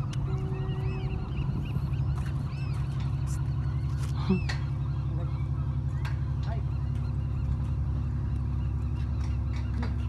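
A steady low mechanical drone, like an engine or machinery running, with short bird calls over it. Most of the calls come in the first half, and one louder call about four seconds in.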